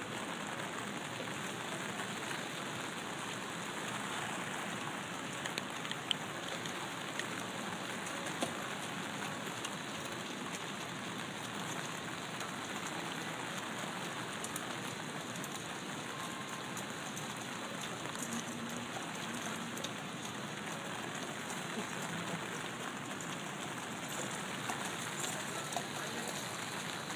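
Steady rain falling on wet paved ground, with a few faint clicks.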